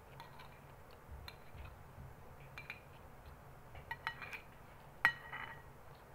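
Metal spoon clinking and scraping against a glass bowl while scooping rice: a handful of short, light clinks with a brief ring, the loudest about five seconds in.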